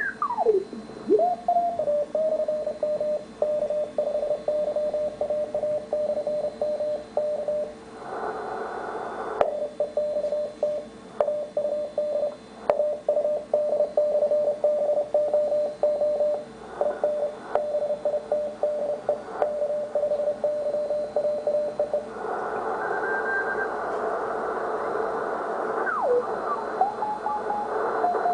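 Morse code on the 80-metre amateur band heard through a Ten-Tec T1380 QRP transceiver: a steady beat tone keyed on and off in dots and dashes. A whistle sweeps in pitch as the dial is tuned at the start and again near the end, and band hiss comes up briefly about eight seconds in and for a longer stretch from about twenty-two seconds.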